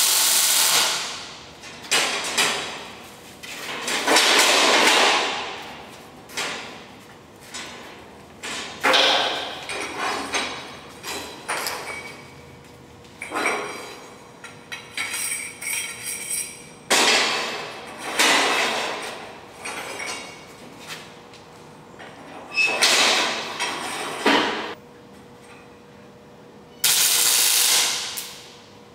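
Metalworking on a sheet-steel box: an irregular series of sharp metallic bangs and short bursts of welding crackle, each fading over a second or so, as the panels and pipes are hammered and tack-welded in place.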